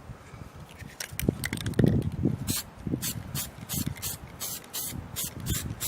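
Aerosol spray-paint can of undercoat being shaken, its mixing ball rattling in a rhythmic run of about three clacks a second that starts about a second in, ready for spraying.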